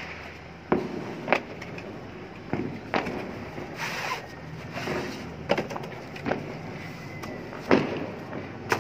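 Handling noise from cardboard firework packaging and a firework tube: scattered sharp knocks and taps against a concrete floor, with a short rustle of cardboard about four seconds in.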